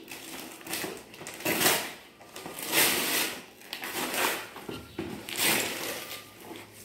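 Gift-wrapping paper being torn and crumpled off a cardboard toy box, a series of papery rustles and rips about once a second.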